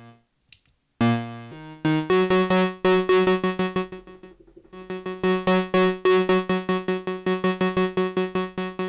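Nunomo Qun mk2 synthesizer playing a two-oscillator patch, the second oscillator a slightly detuned square wave. A few notes step up in pitch, then one note repeats rapidly, about eight times a second, thinning out briefly near the middle. The VCF volume is being turned up, driving the signal into the filter toward its clipping point.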